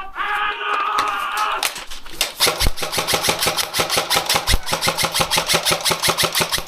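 A short shout, then an airsoft gun firing full-auto about two seconds in: a long burst of rapid, evenly spaced shots that keeps going.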